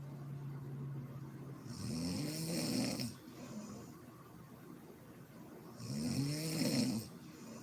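A sleeping woman snoring: a steady low hum in the first second and a half, then two loud snores about four seconds apart, each rising and then falling in pitch, with breath hiss.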